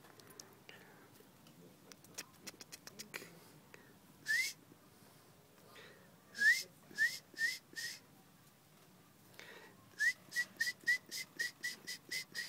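Short, rising, whistle-like chirps made by a person playing with a baby. There is a single chirp, then a run of four, then a quicker run of about ten near the end, with a few faint soft clicks in the first seconds.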